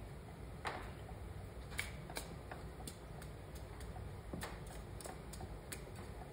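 Scattered light clicks and taps as a head gasket is worked off the cylinder of a Super Rhino 2 kart engine and the metal parts are handled.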